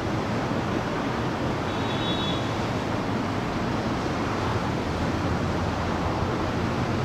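Steady outdoor rumble of wind on the microphone over a low, even engine hum. A brief faint high whistle sounds about two seconds in.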